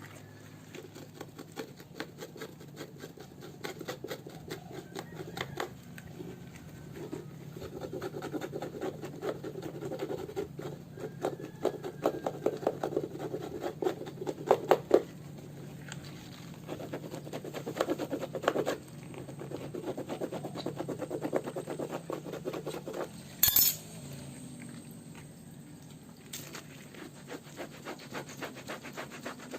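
Close rubbing and scraping with many small crackles, as old heat-pressed lettering is worked off a football jersey. One short, louder scrape comes about two-thirds of the way through.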